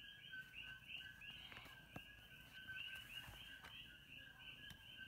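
Faint, even chirping repeated about four times a second, high-pitched and unbroken, over a quiet low room rumble.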